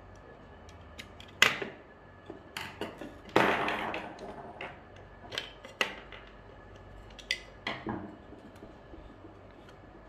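Sharp clicks and knocks of hard plastic parts and a screwdriver as the BV20 note acceptor's drive mechanism is taken apart, with its small plastic gears prised off and put down on a wooden table. There are about eight separate clicks, the loudest about a second and a half in, and a longer scraping rattle a little after three seconds.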